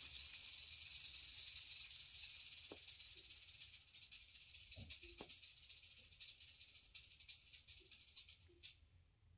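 Massasauga rattlesnake rattling: a steady high buzz that weakens from about four seconds in and stops shortly before the end, with a few faint taps along the way.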